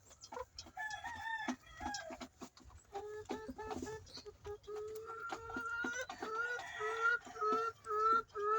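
A flock of young laying hens clucking and calling, with a run of short repeated calls, about two a second, building through the second half.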